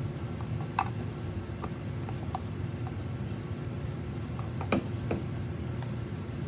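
Light clatter of kitchen utensils over a steady low hum: a few faint ticks, then two sharp knocks a moment apart as a plastic measuring cup holding a silicone spatula is set down on a stainless steel worktop.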